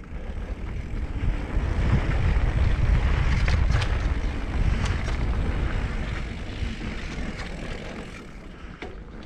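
Wind buffeting the camera microphone and knobby tyres rolling over dirt singletrack as a mountain bike descends, with a few sharp clicks and rattles from the bike. The rush builds over the first couple of seconds and eases near the end.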